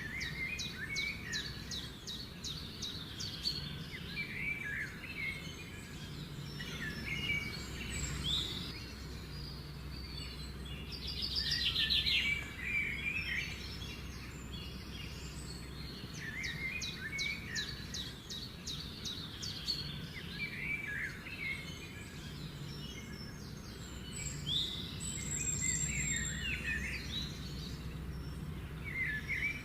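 Several songbirds chirping and trilling, with quick runs of ticking notes and short warbled phrases, over a steady low background hum.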